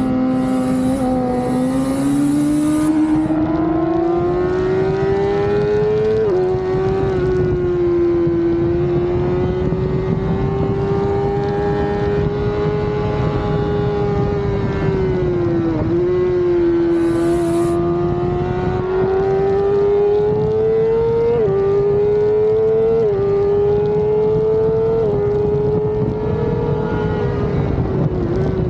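Suzuki GSX-R600 inline-four sportbike engine at racing speed on track, its pitch rising and falling through the corners. It drops sharply about six seconds in and dips near the middle, then climbs with three quick sharp drops at upshifts in the last third, over a steady rush of wind noise.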